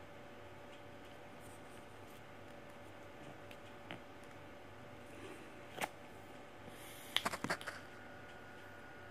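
Small sharp clicks of handling a plastic filter tip and vape stick as the tip is fitted on: a single click about four seconds in, another near six seconds, and a quick run of louder clicks a little past seven seconds. A faint steady hum sits underneath.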